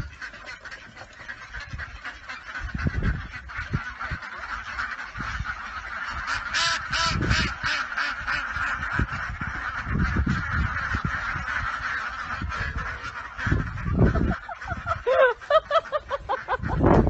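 A flock of ducks quacking together in a continuous chattering chorus, with a few louder, clearer single quacks near the end.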